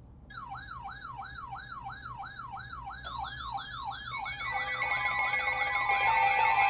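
Electronic siren yelping, its pitch sweeping up and down about three times a second and growing steadily louder. Steady tones come in alongside it about four seconds in.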